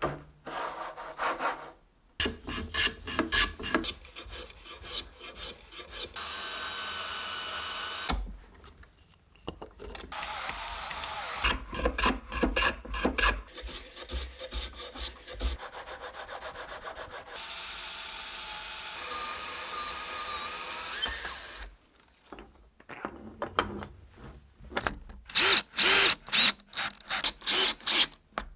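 Hand woodworking on wood: a bench plane taking repeated strokes along a wooden block, shaving it down, with stretches of steady rubbing between runs of strokes. Near the end come short bursts of a cordless drill driving screws into wood.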